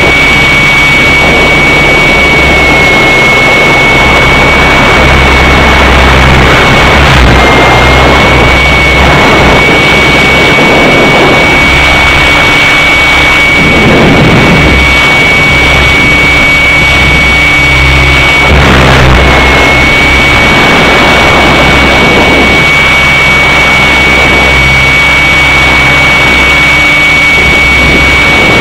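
Align T-Rex 600 radio-controlled helicopter in flight, heard from on board: a loud, steady high-pitched whine over rotor and wind noise. The whine dips briefly in pitch a few times.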